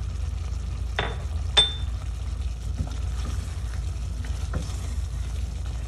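Wooden spoon stirring a thick, creamy chicken curry in a stainless steel pot, with two sharp knocks against the pot about a second in and half a second later, each ringing briefly, the second louder. A steady low hum lies underneath.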